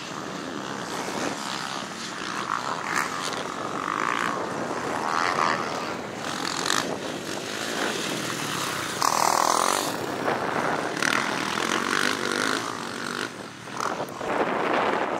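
Several motocross dirt bike engines running hard around a dirt track, the revs rising and falling as the bikes accelerate and back off.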